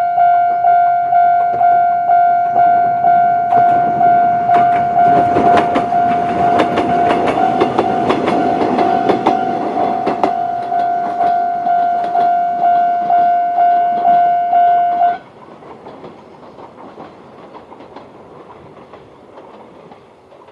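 Japanese level-crossing warning bell, the old-type electronic tone, ringing in even repeated dings about three every two seconds. Between about 4 and 10 seconds in, a 7000-series electric train passes, its wheels clicking over the rail joints. The bell cuts off about 15 seconds in, leaving only faint noise.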